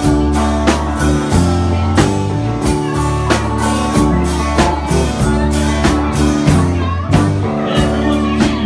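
A live band playing a song: acoustic and electric guitars over bass and a drum kit keeping a steady beat.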